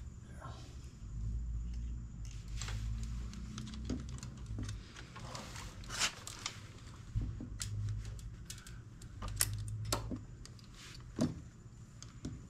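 Small metallic clicks and rattles of a throttle cable end and the carburetor bell-crank linkage being worked into place by hand, over dull low rumbling from handling. The clicks come irregularly, sharpest about halfway through and near the end.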